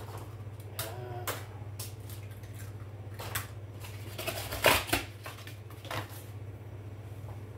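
Eggs being cracked and dropped into a stainless steel pan, a few sharp taps, then a louder clatter about four and a half seconds in as a pulp egg tray is handled. A steady low hum runs underneath.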